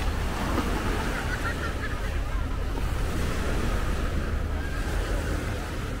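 Sea surf washing on the shore with wind buffeting the microphone, a steady rumbling hiss, with a few faint distant voices.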